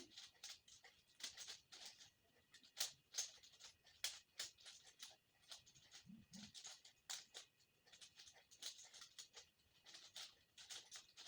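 Faint, irregular plastic clicking and scraping of a 5x5 Rubik's cube being turned and handled.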